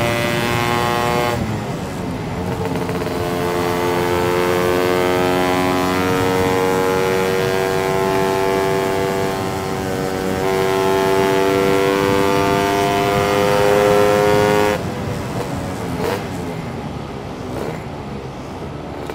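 Two-stroke Lambretta engine with a TS1 230 kit, breathing through a SIP Nordspeed touring expansion exhaust, screaming at high revs under hard acceleration. Its pitch drops sharply about a second in, then climbs slowly for about thirteen seconds, before the sound falls suddenly quieter near the end.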